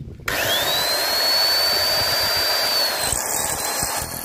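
Electric drill starting up about a third of a second in, its motor whine rising quickly and then running steadily while it drills a hole through the pickaxe's steel handle collar.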